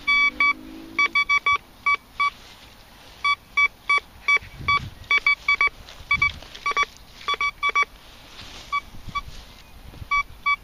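Thracian metal detector beeping as its coil sweeps over the grass: many short tones at one mid pitch, coming in irregular clusters of a few beeps each. The detector is signalling a target that, to the man swinging it, sounds to be near the surface.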